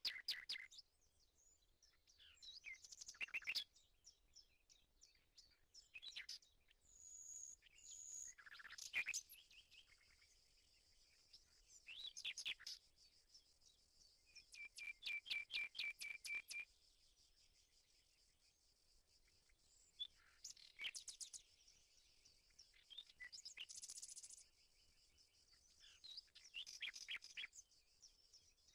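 Songbirds singing: short bursts of rapid, high chirps and trills every few seconds, over a faint steady high hiss.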